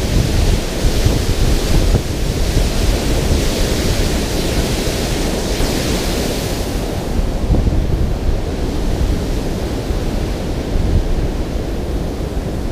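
Water pouring over a concrete dam spillway, a steady rush of churning white water with a deep rumble, mixed with wind buffeting the microphone. The hiss thins a little about halfway through.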